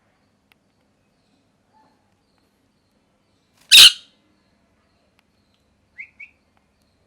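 Ringneck parrot giving one loud, harsh screech about four seconds in, followed near the end by two short, quick rising chirps.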